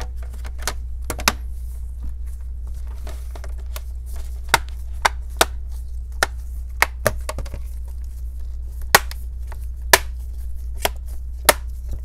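Sharp plastic clicks, about a dozen spaced irregularly, most of them in the second half, as the clips of an HP 17 laptop's bottom cover snap into place under pressing hands.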